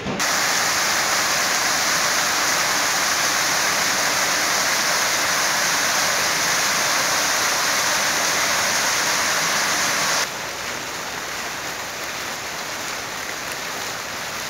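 Fountain jets splashing onto a stepped stone cascade: a steady rush of falling water. About ten seconds in it cuts off suddenly to a quieter, steady outdoor hiss.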